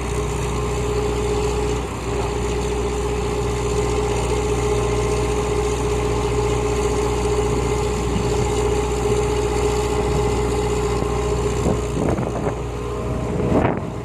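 Diesel engine of heavy earthmoving machinery running steadily, with a constant whine over its hum; the sound turns uneven in the last couple of seconds.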